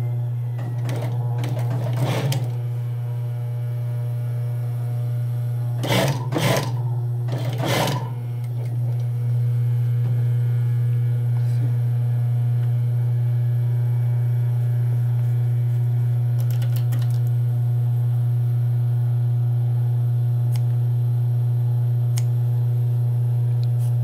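Electric sewing machine motor running with a steady low hum. A few brief rustles of fabric being handled come in the first eight seconds.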